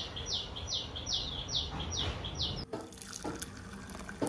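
A bird repeating a short, clear, downward-sliding call about three times a second, cut off abruptly a little over halfway through. After it comes a tap running water, with a few light clicks.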